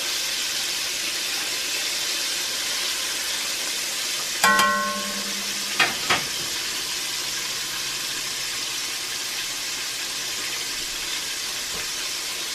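Chicken tenders deep-frying in oil in an enameled cast iron Dutch oven, a steady sizzle. About four and a half seconds in comes one ringing metal clank, then two short clicks, from the metal tongs being set down.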